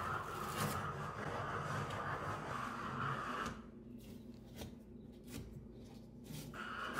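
Wallpaper being peeled and torn off a wall by hand, with soft ripping and scraping sounds, over steady background noise that drops away for a few seconds in the middle.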